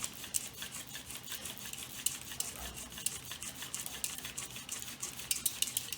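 Friction-fire drill spindle grinding against a wooden hearth board in rapid, rhythmic scratchy strokes, driven fast and hard to build a coal-forming ember.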